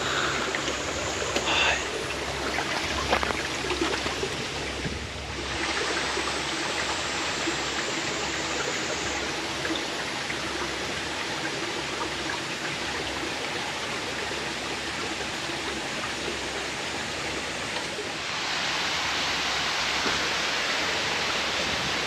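Steady rushing of a mountain creek and waterfall, the water noise growing louder about five seconds in and again near the end.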